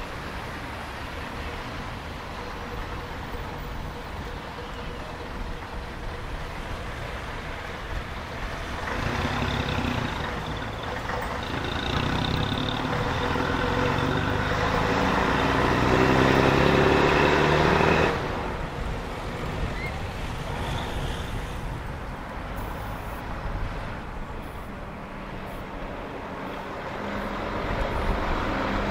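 Bus engine accelerating, its note climbing in pitch and growing louder from about a third of the way in, then cutting off suddenly about two-thirds through; steady road traffic noise before and after.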